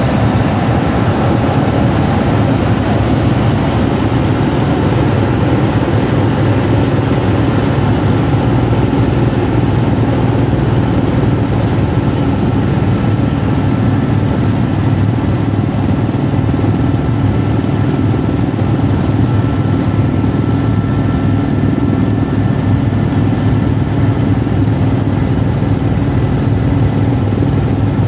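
Helicopter in flight heard from inside the cabin: a loud, steady drone of turbine engine and rotor.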